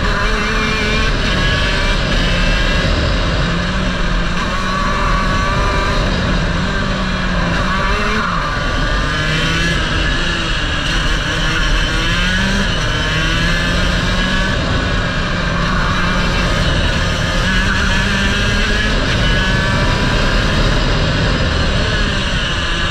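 Racing kart engine heard from on board, its pitch climbing as it revs out and dropping off again several times as the kart laps the circuit, over a steady low rumble.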